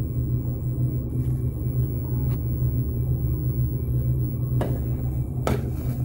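Steady low hum of running machinery, with a couple of light knocks near the end.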